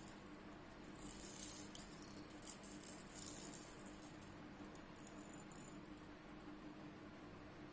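Faint, high-pitched jingling rattle in a few short spells, over a steady low hum.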